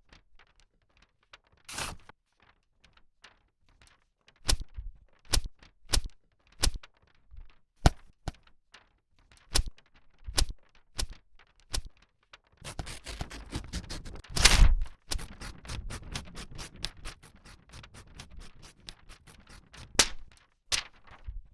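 A single sheet of paper used as sound effects: sharp snaps and taps at uneven intervals, then a long run of paper crinkling and rustling about halfway through with one loud crumple in it, and two more sharp snaps near the end.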